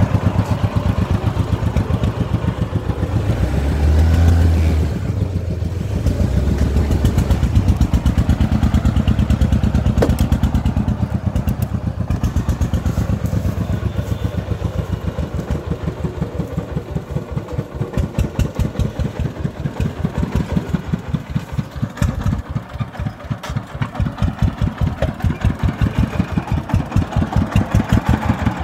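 Single-cylinder diesel engine of a loaded công nông farm truck chugging with a fast, even thudding beat as it drives on a dirt track. It grows fainter through the middle and louder again near the end.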